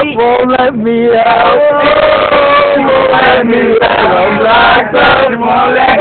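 Men's voices singing and chanting loudly together, with long drawn-out notes.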